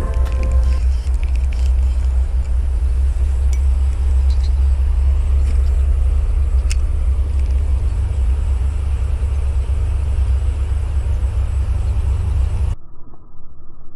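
Wind buffeting the camera's microphone: a loud, steady low rumble, with a few faint clicks. It drops away abruptly near the end.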